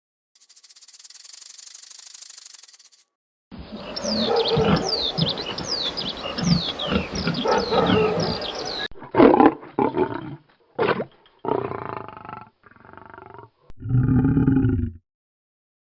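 A string of separate animal-call clips: a rhythmic rasping noise, then a dense stretch full of quick falling chirps, several short calls, and near the end a deep roar-like call.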